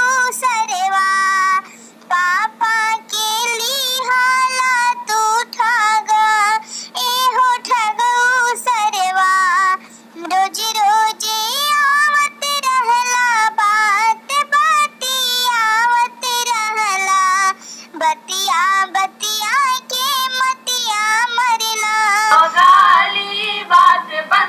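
A Bihari folk song, a gali geet of the kind sung at weddings, carried by one high-pitched singing voice in long wavering phrases with short breaks, over a steady low drone.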